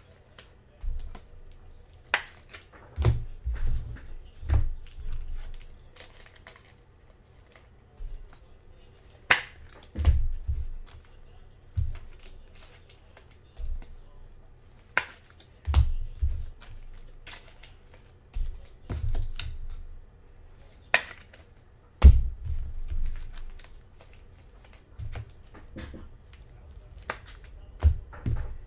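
Hands handling football trading cards on a table: irregular sharp clicks and taps as cards and card holders are flipped, slid and set down, with dull thumps against the tabletop every few seconds.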